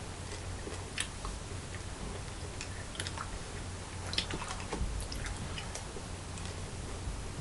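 Two people chewing Skittles candy: scattered small crunches and clicks over a steady low hum.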